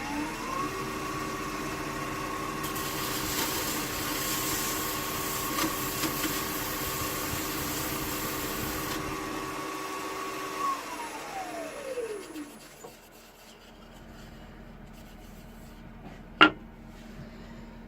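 A power tool's electric motor spins up with a rising whine and runs steadily. For several seconds a sanding arbor rubs against wood with a hissing sound, then the motor winds down with a falling whine. A single sharp click comes near the end.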